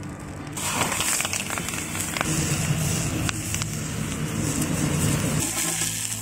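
Banana-leaf parcel sizzling and crackling in hot oil on an iron griddle; the sizzle starts about half a second in and runs on steadily.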